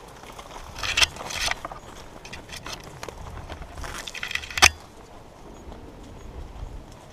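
Rustling and brushing noises in several short bursts, the sound of a player moving through brush with gear rattling, with one sharp click about four and a half seconds in.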